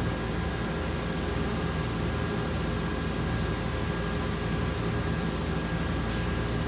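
Steady mechanical hum with a fan-like hiss and several fixed tones, unchanging throughout.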